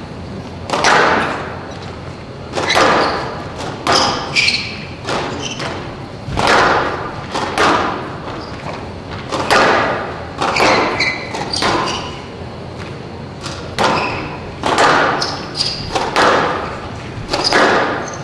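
Squash rally: a squash ball struck by racquets and smacking off the court walls, sharp hits about once or twice a second, each echoing through the hall.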